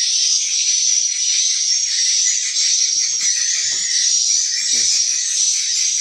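Dense, continuous high-pitched twittering of swiftlet calls filling a swiftlet house. It comes from tweeter speakers playing lure calls, mixed with the edible-nest swiftlets roosting in the colony.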